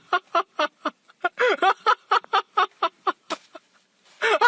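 A voice making a rapid string of short pitched sounds, about five a second, breaking off briefly near the end.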